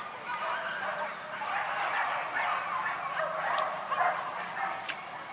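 A pack of hunting dogs barking and yelping, many short overlapping barks that go on without a break.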